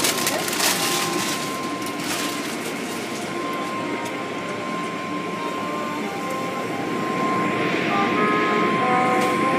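Automatic car wash heard from inside the car: spinning cloth brushes slapping the windows and water spraying, over a steady machine whine. The spray grows louder and hissier from about three-quarters of the way in.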